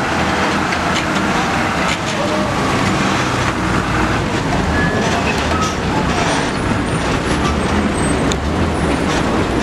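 Diesel engine of a loaded Mitsubishi Fuso cargo truck running steadily as the truck crawls past through soft dirt and mud.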